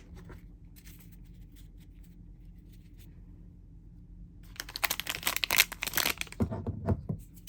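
A plastic trading-card pack wrapper being torn open with crinkling, starting about halfway through and lasting a couple of seconds, after a few faint handling clicks.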